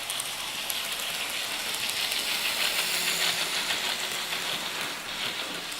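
ESU sound decoder in a Fleischmann model of a P8 (class 38) steam locomotive playing a steady hiss of steam, with a few clicks near the start and faint tones joining in around the middle.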